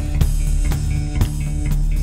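Background music with a drum-kit beat over a steady bass line.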